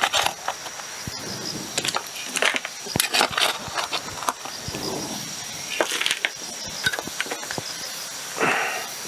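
Loose soil and stones being scraped up with a small hand pick and dropped into a plastic bucket: irregular clinks and scrapes, with several short gritty rattles as loads of dirt and rubble fall in.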